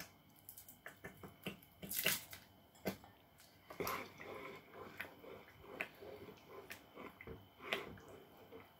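Faint, scattered clicks and light knocks of a spoon against a coated cooking pot as thick tomato sauce is stirred.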